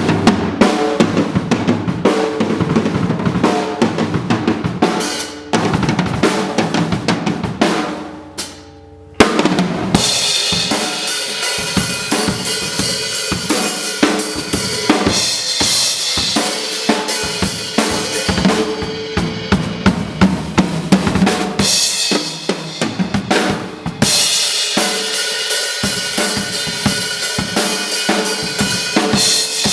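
Drum kit played in a recording studio: kick, snare and cymbals in a steady groove. The playing drops away briefly about eight seconds in, then comes back in loud with a cymbal crash, and surges again with a crash near the end.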